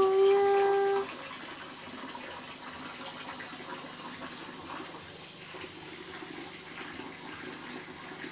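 A voice humming a steady held note, which stops about a second in. A faint, steady hiss follows for the rest.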